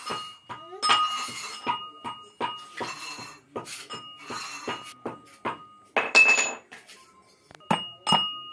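Rapid metallic clinks on steel kitchenware, each leaving a short ring at the same pitch, about two to three a second, with a louder noisy burst about six seconds in.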